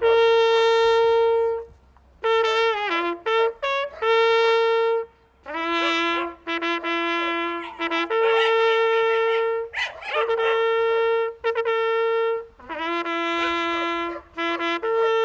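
Hunting horn blowing a call, long held notes alternating between two pitches with quick runs between them, played to honour the game laid out at the end of the hunt.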